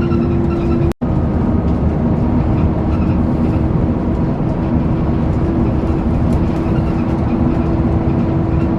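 Bus running, heard from inside: a steady loud drone of engine and road noise with a constant hum. It cuts out for an instant about a second in.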